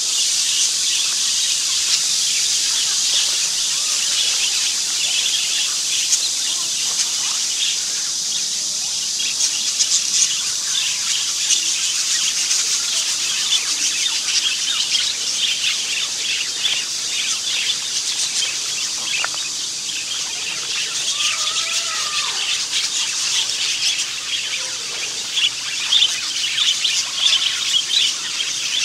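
Many small birds chirping in a dense, continuous chorus over a steady high-pitched hiss. A single lower call glides up and down about two-thirds of the way through.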